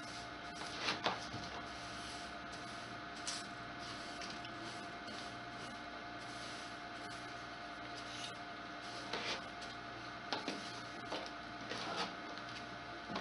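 A bristle hand brush sweeping debris off the flat metal top of a wood stove in short scratchy strokes, about a second in, once near the middle, and several more toward the end, over a steady background hum.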